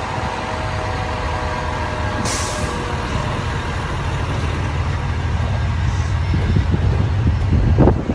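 Heavy diesel fire apparatus engine running steadily, with a short hiss of air about two seconds in, typical of air brakes.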